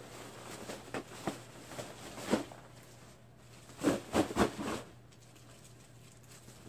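Scattered short knocks and rustles of things being handled, with the loudest cluster about four seconds in.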